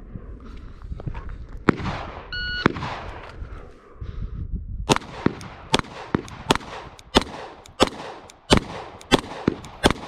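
A shot-timer beep, then about two and a half seconds later a rapid string of 9mm shots from a Glock 17 Gen 5 pistol fitted with a compensator, roughly one shot every 0.6 seconds.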